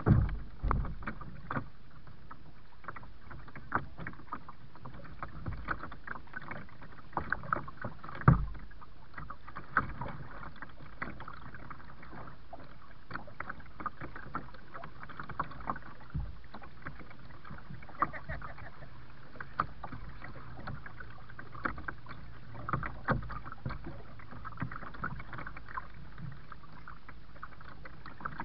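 Kayak being paddled, with water sloshing and irregular sharp knocks and clunks on the hull, the loudest right at the start and about 8 seconds in.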